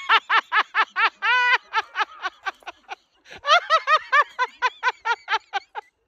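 A person laughing hard in a long string of quick 'ha' pulses, about six a second, with one drawn-out note and a short break for breath about three seconds in, then another fast run.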